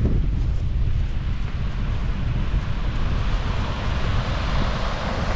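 Wind buffeting the microphone as a steady low rumble, with a broad hiss that grows stronger about halfway through.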